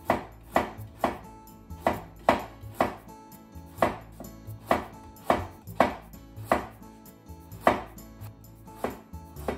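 Chef's knife slicing a carrot into thin diagonal slices on a wooden cutting board: a sharp, even chop about twice a second as the blade goes through and strikes the board.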